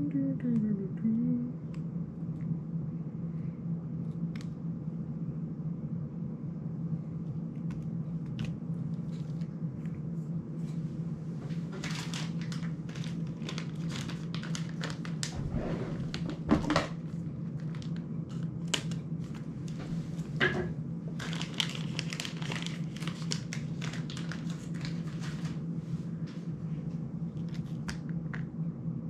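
Small hand-handling noises from repair work on a small FPV drone: crinkling and crackling of plastic and small parts, with light clicks of tools, coming in two stretches of quick clicks. A steady low hum sits underneath.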